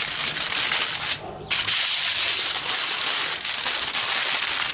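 Heavy-duty aluminium foil crinkling and rustling as it is folded and pressed around a brisket, with a short break about a second in.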